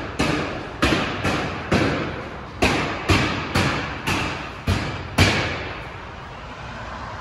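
Demolition hammering: about eleven heavy hammer blows, roughly two a second, each echoing through the empty building, stopping a little after five seconds.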